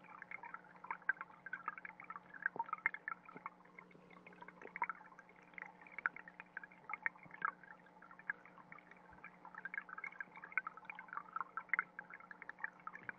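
Stream water trickling, heard underwater: a dense, irregular crackle of small ticks and pops over a faint steady hum.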